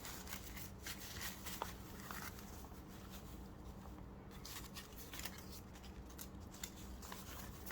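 Faint rustling and soft ticks of paper pages and cards being handled and layered together, over a low steady hum.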